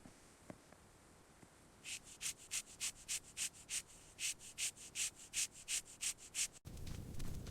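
Rhythmic rubbing strokes, about three a second, in two runs of short hissy swishes with a brief pause between them; near the end they stop abruptly and a steady low background noise takes over.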